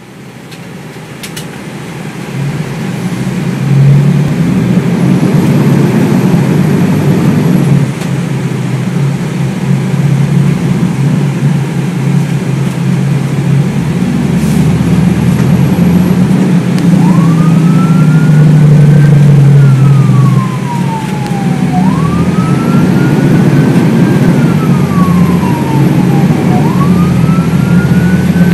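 Ferrara fire engine heard from inside its cab while under way: a loud, steady engine drone and road noise. About halfway through, its siren starts wailing, each cycle rising quickly and then sliding slowly down, three times over.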